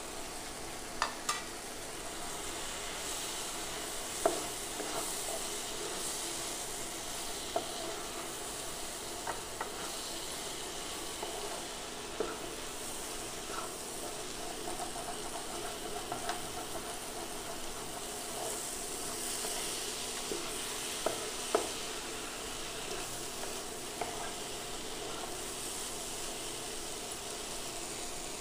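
A wooden spatula stirring green beans and moong dal in a nonstick frying pan, over a steady sizzle. The spatula knocks against the pan now and then, loudest about four seconds in and twice about three-quarters of the way through.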